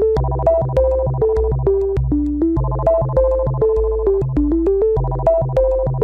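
Background synthesizer music: a repeating phrase of short melody notes over a pulsing bass line.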